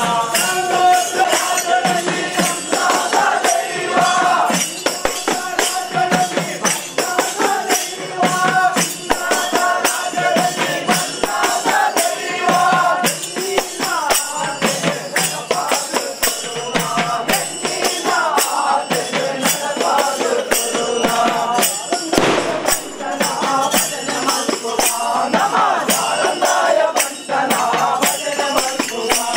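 Live South Indian ritual band music for a bhuta kola: a reedy wind instrument plays a wavering melody over a dense, fast beat of drums and jingling cymbals.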